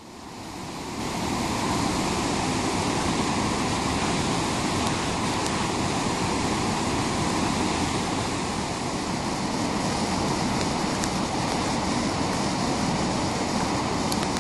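Fast river rapids rushing steadily, a constant white-water noise that fades in over the first couple of seconds.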